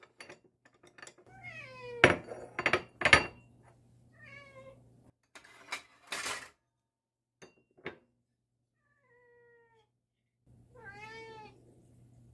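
Cats meowing for food, about four separate meows, some falling and one arched in pitch near the end. Sharp clinks of a spoon against a bowl as canned cat food is dished out come between them, the loudest about two and three seconds in.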